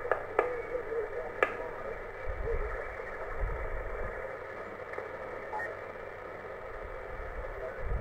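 X108 HF transceiver's receiver hissing with band noise through its narrow single-sideband passband while the VFO is tuned down the 10 m band. A few sharp clicks come in the first second and a half, and a few low thumps come later.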